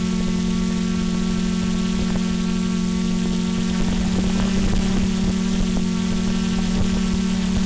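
Quadcopter drone's motors and propellers humming steadily at one pitch while it hovers, heard from its onboard camera, over a low rumble.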